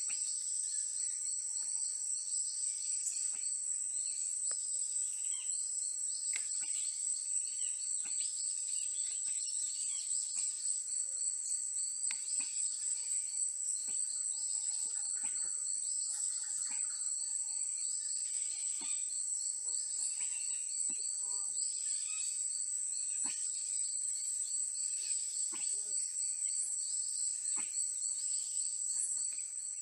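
Forest insect chorus: a steady high-pitched drone with a fast pulsing trill just below it, and scattered short clicks throughout.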